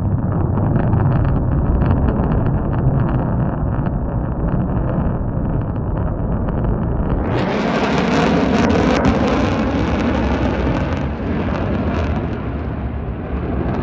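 Aircraft engine roar from a plane flying overhead, mixed with wind buffeting the microphone. About seven seconds in, the noise turns fuller and brighter and stays that way.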